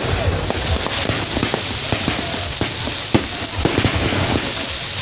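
Fireworks going off: a dense, continuous crackle with many sharp pops from bursting sparks.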